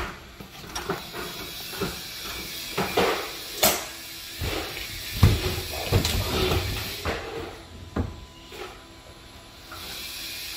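Irregular knocks, clatters and scraping as someone climbs a fibreglass stepladder and pushes up a drop-ceiling tile.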